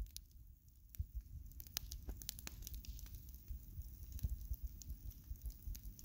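Wood bonfire crackling, with many irregular sharp pops and snaps from the burning branches and logs over a steady low rumble.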